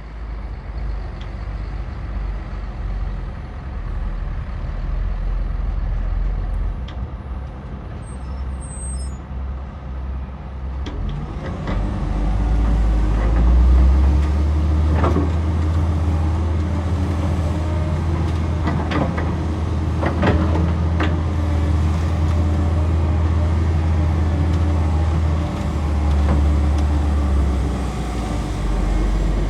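Excavator's diesel engine running, rising to a heavier, louder drone about eleven seconds in as it works under load and easing off near the end, with a few sharp knocks in the middle.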